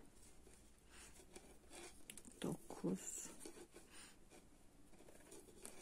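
Faint clicking and scratching of thin metal knitting needles and cotton yarn as stitches are knitted by hand. Two brief soft voice sounds come about two and a half seconds in.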